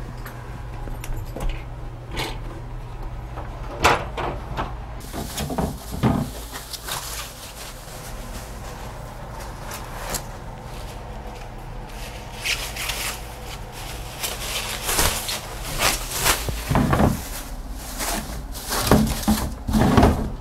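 Handling noises: scattered knocks and clicks, over a low hum that gives way to a steady hiss about five seconds in.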